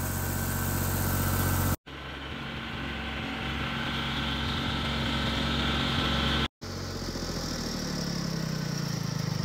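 Farm tractor engine running steadily, heard in three short clips cut together; in the last clip the engine note climbs slightly near the end.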